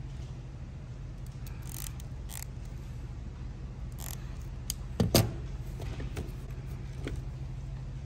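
Hand crimping tool squeezed onto a blue female spade terminal on a wire: a louder click about five seconds in, amid light clicks of the wires being handled, over a steady low hum.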